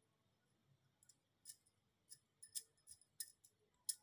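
Near silence broken by faint, irregular little clicks and ticks, more of them in the second half, as a pastry brush spreads chilled, thickened ghee and cornstarch paste over a rolled disc of dough.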